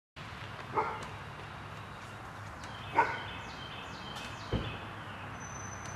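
A dog barks twice, about two seconds apart, over a steady low background hum, followed by a single low thump.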